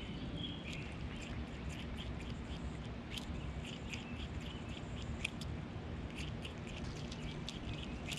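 Black-tailed prairie dogs chewing carrot and kale: quick, irregular crunching clicks.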